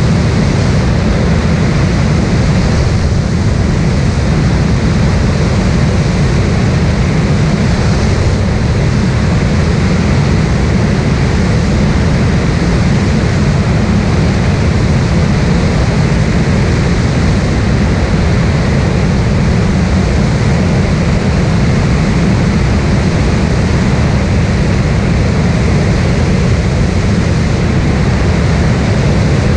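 Cessna light aircraft in flight, heard from inside the cabin: a loud, steady drone of engine, propeller and airflow, heaviest in the low end, with no change in power.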